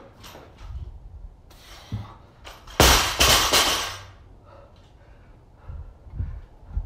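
A loaded barbell with black bumper plates dropped onto rubber floor mats about three seconds in: one hard impact, then bouncing and rattling for about a second.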